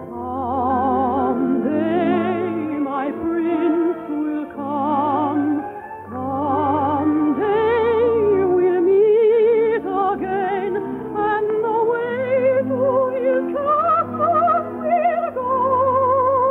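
A solo singer with strong operatic vibrato and an orchestra playing under the voice, in the narrow, old-sounding quality of a 1953 radio broadcast recording.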